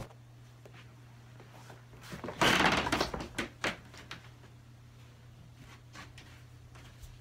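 A person getting up from a desk chair and moving about. About two and a half seconds in there is a loud rustling scrape, then a few short knocks, all over a steady low hum.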